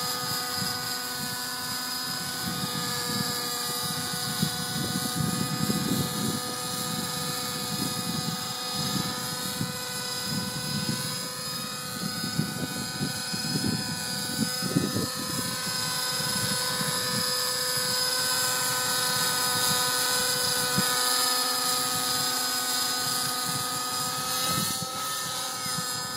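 Small model helicopter flying with a steady whine whose pitch bends up and down for a few seconds in the middle, as it moves out of a hover. Wind gusts buffet the microphone throughout.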